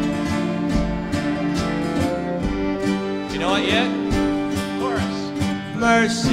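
String band instrumental break: a fiddle plays the lead with sliding notes over strummed acoustic guitars and banjo, and a singer comes back in at the very end.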